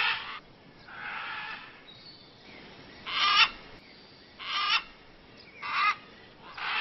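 Parrot squawking: a series of harsh, raspy calls repeated about every second and a half.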